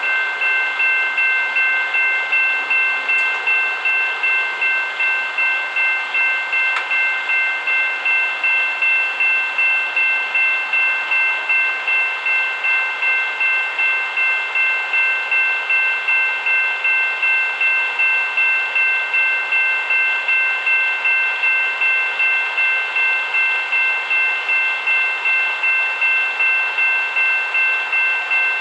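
A train's multi-chime air horn held in one long unbroken chord of three high notes, the loudness pulsing evenly about twice a second.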